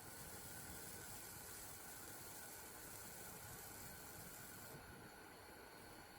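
Near silence: a faint, steady room-tone hiss. The highest part of the hiss drops away near the end.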